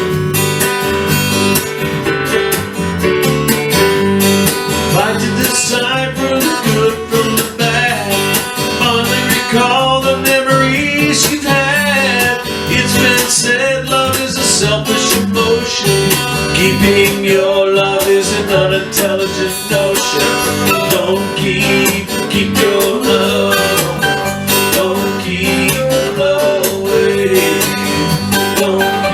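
Acoustic guitar music in a country style: steady strumming under a moving melody line, an instrumental passage with no singing.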